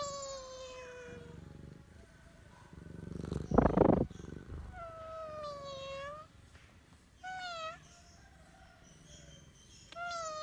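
Domestic cat meowing: four drawn-out meows. The first falls in pitch, the second is the longest, the third is short, and the last starts near the end. About three and a half seconds in comes a short, loud burst of noise that is louder than the meows.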